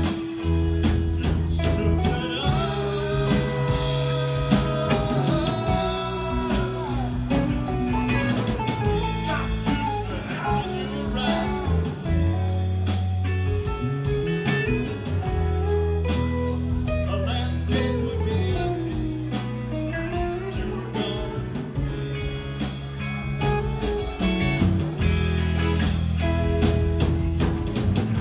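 Live rock band playing: electric bass holding long low notes under a drum kit's steady beat, with electric guitars and keyboard and a gliding guitar lead line on top.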